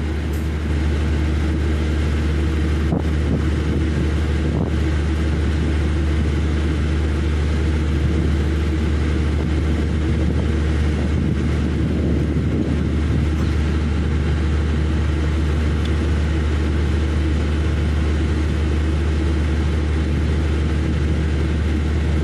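Steady low rumble of an engine running nearby, holding an even level throughout.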